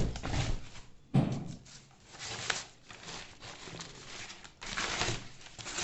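Packing paper rustling and crinkling in several bursts as it is pulled out of a cardboard shipping box, with a few light knocks from handling the box.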